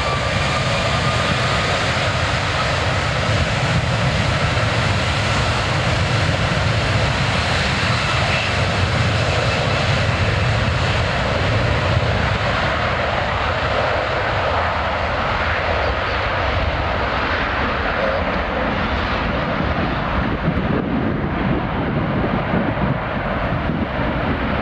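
Rolls-Royce Trent 772 turbofans of an Airbus A330-342 at takeoff power during the takeoff roll: a steady, loud jet engine noise with a faint fan whine slowly rising in pitch early on. The hiss dulls from about halfway through as the aircraft moves away down the runway.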